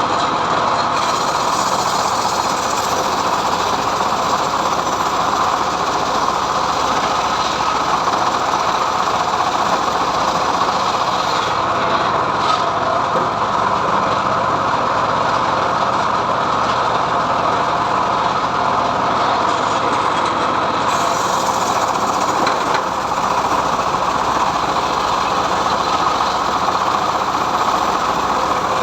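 Homemade sawmill running steadily, its blade ripping lengthwise through mahogany with the drive engine's steady noise underneath.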